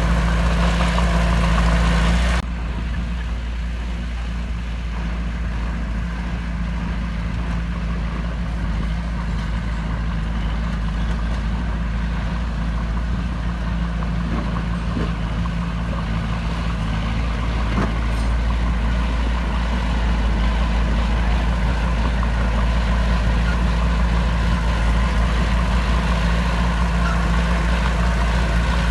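Heavy diesel engine of earthmoving machinery running steadily with a low hum. The sound changes abruptly about two seconds in, turning quieter and rougher, and it grows a little louder in the second half.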